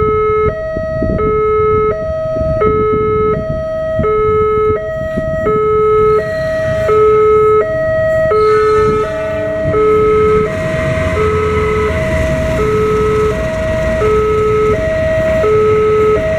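Railroad level-crossing warning alarm sounding a two-tone electronic signal, alternating a lower and a higher note about every 0.7 s, repeating steadily. From about ten seconds in, the rumble of a passenger train passing through the crossing joins it.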